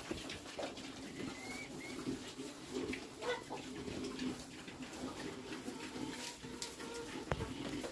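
Duroc-cross piglets feeding at a trough of grain: low, steady grunting with many small clicks and crunches of eating.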